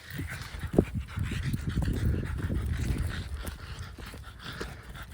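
A small dog panting rapidly and close by, strongest through the first few seconds and then easing off.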